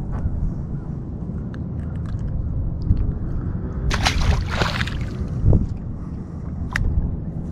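A small redfish splashing into the water as it is tossed back, a short splash about four seconds in, over a steady low rumble of wind and water, with a few light clicks of handling.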